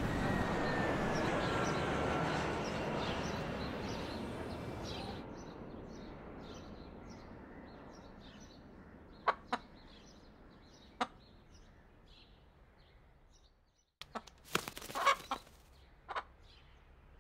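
Street traffic with a bus passing fades out over the first few seconds, leaving faint, high, repeated bird chirps and a few sharp clicks. About two-thirds of the way in, a rooster gives a short burst of clucking.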